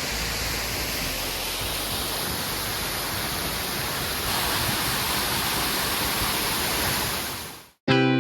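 Steady rushing noise of the sea along a rocky coast, even and unbroken, fading out near the end.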